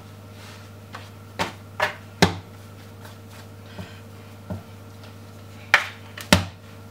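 Scone dough being kneaded by hand and knocked down onto a floured kitchen worktop: about eight irregular dull thuds, the loudest a little after two seconds and twice near the end.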